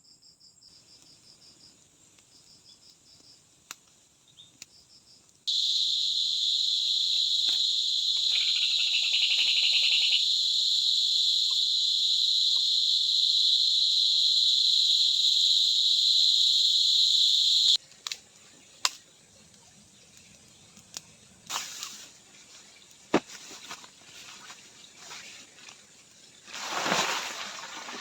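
Crickets chirping in short pulsed trills. About five seconds in, a loud, steady, high-pitched insect buzz starts abruptly and cuts off just as suddenly some twelve seconds later. Then come scattered light clicks and knocks, and a brief rush of noise near the end.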